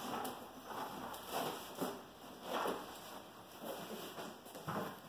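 A deflated inflatable plush toy being pressed and folded into its cardboard box: a string of irregular rustles and scuffs of fabric against cardboard.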